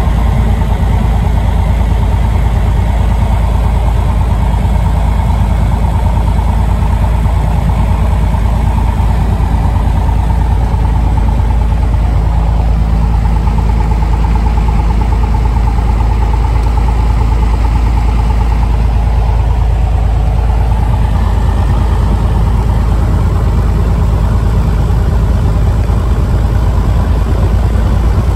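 Piper light aircraft's piston engine and propeller running steadily on the ground, heard from inside the cockpit. The pitch sags slightly around the middle and then comes back up.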